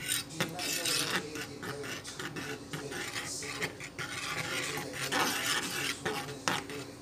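A metal fork stirring eggs and scraping across the bottom of a nonstick frying pan in repeated, irregular rasping strokes.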